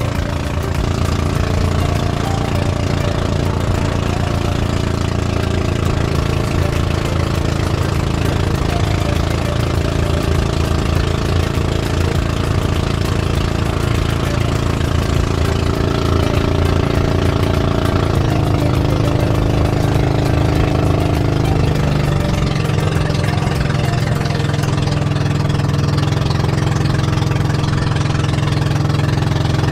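Small engine of a motorized outrigger boat running steadily under way, its pitch shifting a little about twenty seconds in.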